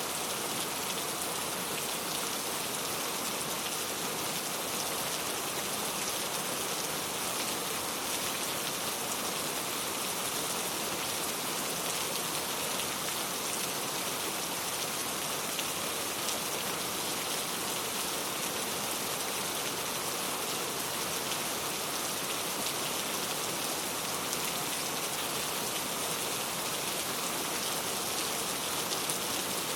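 Steady rain falling and pattering on a surface, an even hiss of many small drops with no thunder.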